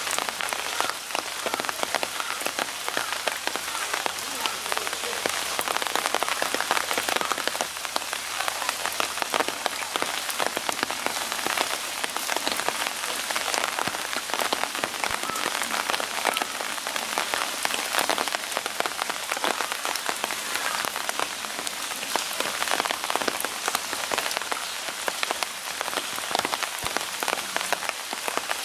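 Steady rain, a dense pattering of many small drop taps.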